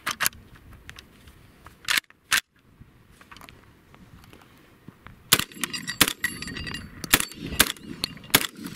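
Catamount Fury II semi-automatic 12-gauge shotgun fired with birdshot: two sharp reports about two seconds in, then a rapid string of about five shots from about five seconds in, emptying the magazine until the action locks back.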